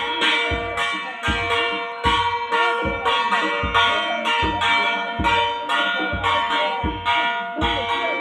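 Traditional festival band playing: a drum struck about twice a second with ringing metal cymbals or bells on each beat, and a wavering melody over them.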